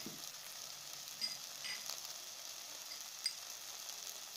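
Onion and ginger-garlic-tomato paste frying in hot oil in a kadhai: a faint steady sizzle with a few small pops and crackles.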